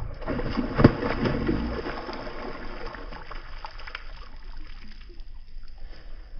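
Hooked barramundi thrashing and splashing at the water's surface while being played on a rod. There is one loud splash about a second in, then the splashing tapers off.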